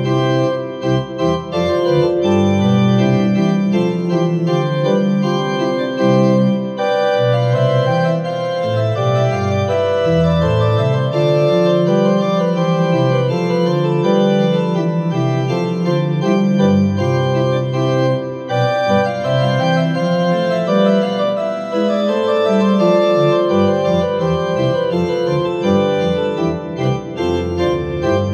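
Organ music: slow, held chords that change every second or two, with a few short breaks between phrases.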